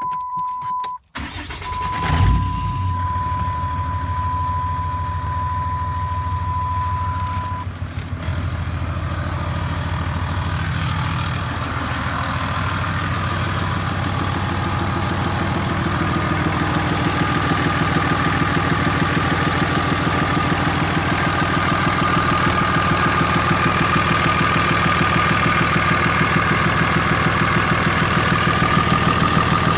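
6.7 L Cummins turbo-diesel starting about two seconds in and settling into a steady idle with a fast, even clatter. The owner is unsure whether this noise is valve lash or an exhaust manifold leak from reused gaskets. A steady high electronic tone sounds for the first several seconds, and a faint whine builds in the second half.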